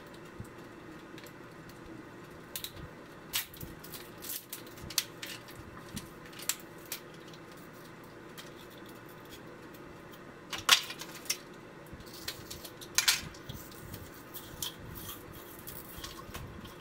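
Small objects being handled: scattered clicks and light rattles, with two louder clatters in the second half.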